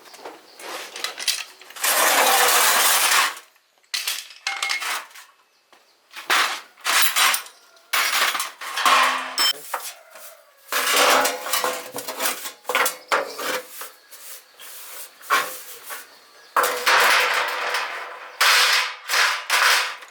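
Metal tools and machine parts clinking and scraping during hand repair work, in irregular bursts with a few longer scraping stretches.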